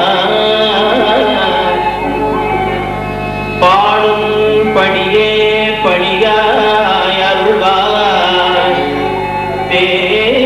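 A devotional song sung to harmonium accompaniment, the harmonium sounding held chords under the voice. The music gets louder about three and a half seconds in.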